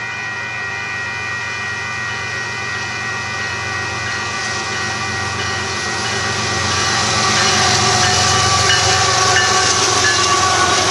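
Union Pacific container freight train approaching and rolling past, growing louder about two-thirds of the way through. Several steady high-pitched tones sound over the rumble in the first half and fade out.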